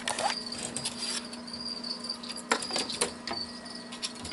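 Clicks and light knocks of a glass terrarium's screen lid being handled and opened, the sharpest about two and a half and three seconds in, over a high-pitched chirping that comes and goes and a steady low hum.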